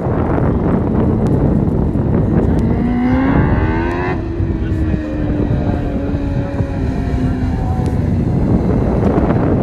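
Dwarf race car's motorcycle engine passing at racing speed: its pitch climbs for about two seconds, drops sharply and then holds lower as it goes away, over a steady low rush of noise.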